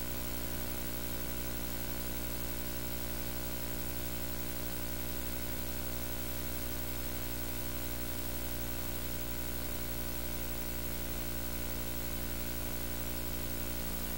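Steady electrical hum with a ladder of even overtones under a constant hiss.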